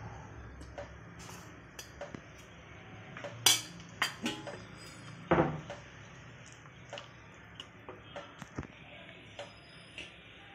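A metal spoon knocking and scraping against a metal kadhai while stirring a thin, watery curry. A few loud knocks come in the first half, then lighter clicks.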